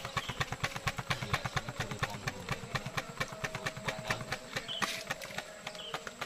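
A small engine, most like a motorcycle, running at idle with a rapid, even putter that weakens after about four seconds.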